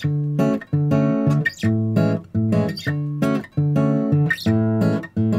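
Background music: strummed acoustic guitar chords in a steady, even rhythm.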